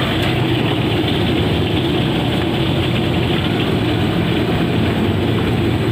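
Steady low roar of a gas burner under a large wok of hot frying oil.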